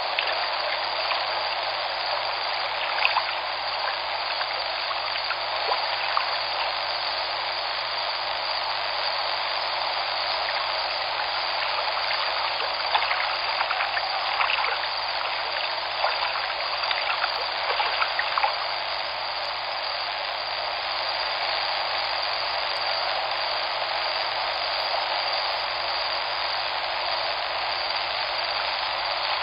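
Olifants River water flowing: a steady rush of moving water, with a few faint ticks here and there.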